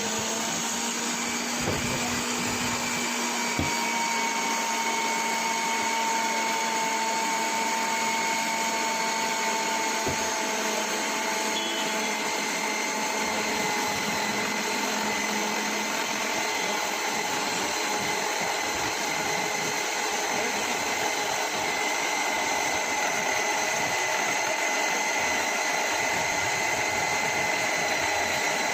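Preethi Zodiac mixer grinder's 750 W motor running steadily, with a continuous whine over its whirring noise.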